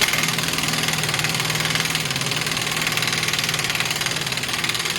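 Impact wrench running continuously and rattling rapidly on the 32mm rear axle hub retaining nut, cutting in suddenly and stopping just after five seconds.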